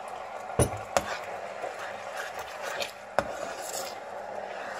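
A plastic ladle stirring coconut-milk curry sauce in a coated frying pan, with three sharp knocks of the ladle against the pan: about half a second in, a second in, and about three seconds in. A steady hiss runs underneath.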